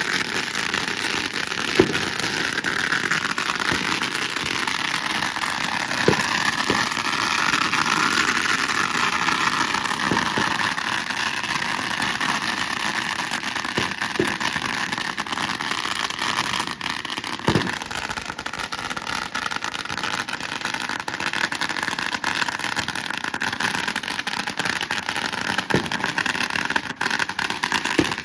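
Firecrackers going off in their thousands: a dense, continuous crackle with a few louder single bangs standing out every several seconds.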